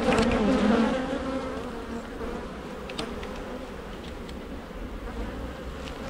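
Honey bees buzzing around an opened hive: a steady colony hum, with a louder, wavering buzz in the first second as bees fly close. A light click about three seconds in.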